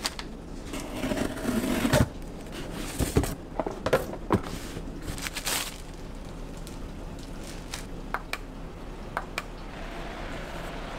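A cardboard parcel being cut open and unpacked: a box cutter scraping through packing tape, then cardboard and packaging rustling, with several sharp knocks a couple of seconds in. After that, quieter handling with a few light ticks.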